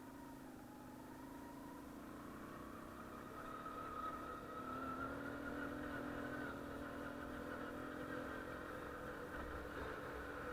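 Engine of a small 72cc ATV running, growing louder and rising slightly in pitch over the first four seconds, then holding steady.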